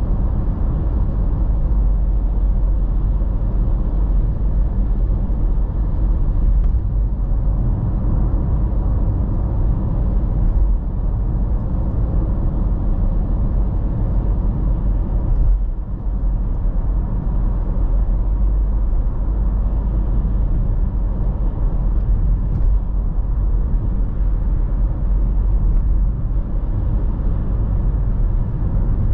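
A car cruising at motorway speed, heard from inside the cabin: steady low road and engine rumble, with one brief dip about halfway through.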